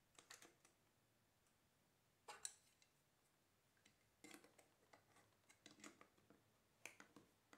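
Small sharp clicks and taps of a Leica M4-2 film camera being handled during film loading: the film cassette seated in the body and the metal bottom plate fitted back on. The clicks come in short clusters every second or two, with faint quiet between.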